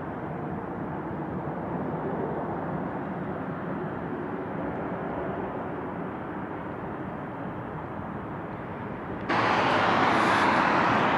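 Steady outdoor city background noise, a constant rumble and hiss with no distinct events. About nine seconds in it turns suddenly louder and brighter.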